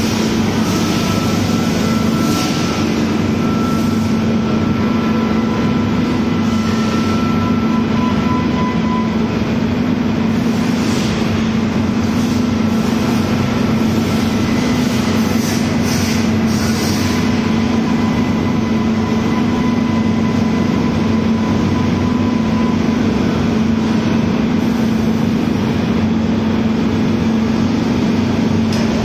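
Shell-making machinery of an investment-casting line running steadily: robotic manipulators dipping wax clusters, and the slurry tank. The result is a loud, constant hum with faint high whines that come and go.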